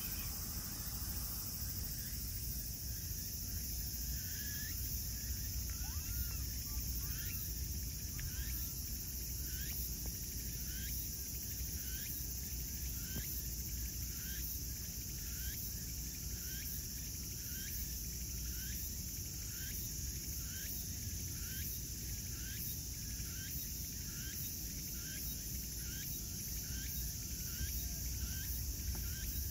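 Outdoor insect chorus: a steady high trilling hiss of insects, with a short chirping call repeated about once a second, starting a few seconds in.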